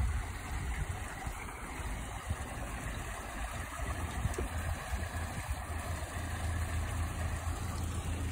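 Narrowboat engine running at low revs with a steady low hum, moving the boat slowly through a canal lock.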